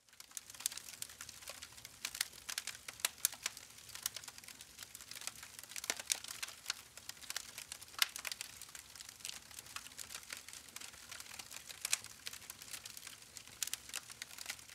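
Crackling sound effect of flying sparks or embers: dense, irregular pops and crackles over a faint hiss, starting abruptly.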